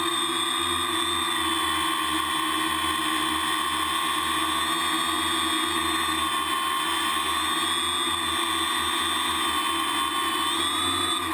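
Multicopter's electric motors and propellers whining steadily, heard from the camera on the craft itself; the pitch wavers slightly and rises near the end.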